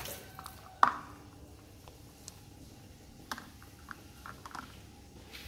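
Handling clicks and taps of a plastic cup and a pen-type TDS meter: one sharp knock about a second in, then a few light clicks.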